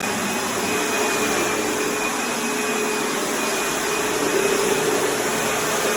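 Electric power sander running steadily, a constant motor whine over an even rush of noise, as it sands down high spots in a floor.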